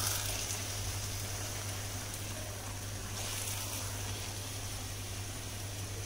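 Hot moong dal halwa sizzling faintly in ghee in the kadhai with the gas just switched off, as a ladle scoops it out. The ladle scrapes the pan more loudly about three seconds in, over a steady low hum.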